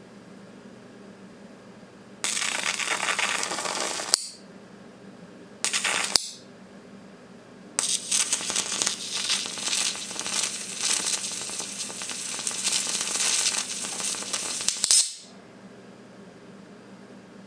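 High-voltage arc from a flyback transformer, drawn with a metal rod to the lead of a string of LEDs, sizzling and crackling in three bursts: about two seconds, then a short half-second one, then a long one of about seven seconds.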